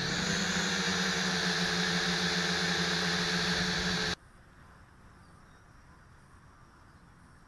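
Small electric quadcopter's motors and propellers whirring at a steady pitch, then cut off abruptly about four seconds in, leaving only a faint hiss.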